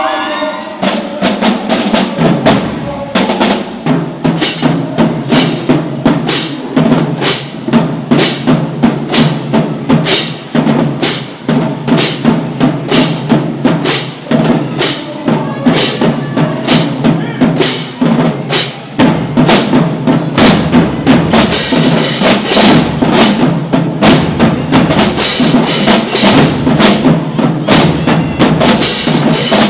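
A marching drum section of snare drums, bass drums and crash cymbals plays a fast, steady cadence. The low drums grow heavier about two-thirds of the way in, with the cymbal crashes loudest near the end.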